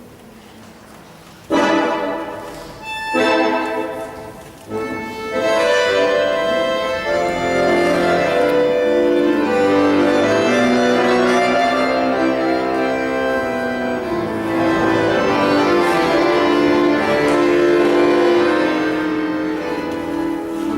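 Instrumental dance-class accompaniment: three separate introductory chords, then a continuous tune from about five seconds in.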